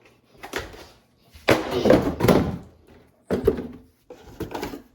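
Dull thunks and scuffing from a 3D printed plastic brass knuckle striking an object and being handled. There are four short bursts, and the longest and loudest comes about a second and a half in.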